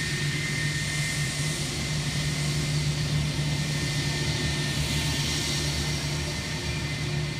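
Jet airliner's engines at takeoff power during the takeoff roll: a steady rumble with a thin, high whine over it. It swells slightly in the middle.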